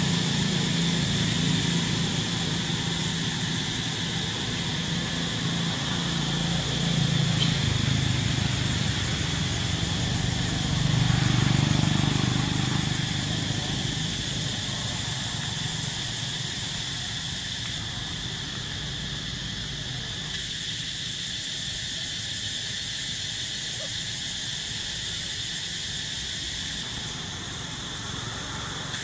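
An engine running at a distance, swelling about eleven seconds in and then fading away, over a steady high-pitched hum that carries on throughout.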